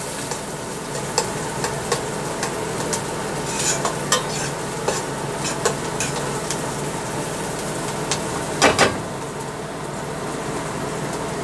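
Diced onions sizzling in oil in a pot, stirred with a metal spoon that scrapes and clicks against the pot now and then, with two louder knocks about three-quarters of the way through.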